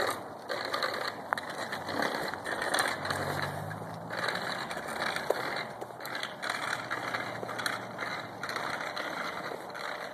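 Irregular gritty crunching on a sand-strewn asphalt road: footsteps on the grit mixed with the small wheels and training wheels of a child's bicycle rolling and rattling over it, with a few small clicks.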